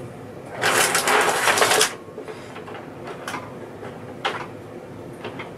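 Test leads with banana plugs being rummaged through and pulled out: a dense clatter of plastic and metal plugs knocking together for about a second, then a few single clicks.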